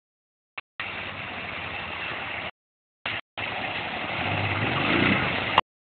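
Honda Transalp 650's V-twin engine running as the motorcycle rides through shallow water, with water splashing around the wheels; the engine note rises and gets louder toward the end. The sound cuts out abruptly for under a second midway and stops shortly before the end.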